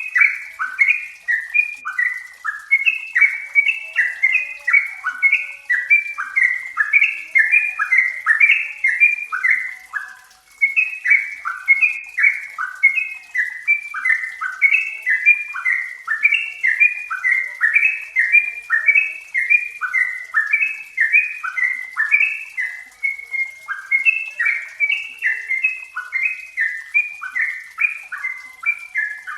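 Yellow-vented bulbul (trucukan) singing a fast, continuous run of short bubbling notes that drop in pitch, with a brief pause about ten seconds in.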